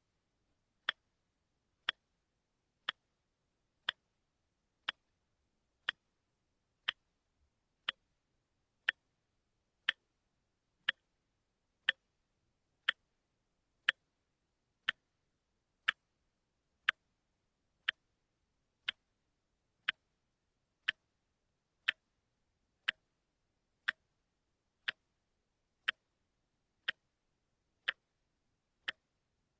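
Mechanical clock ticking steadily about once a second, picked up with a contact microphone: single sharp, dry ticks with dead silence between them.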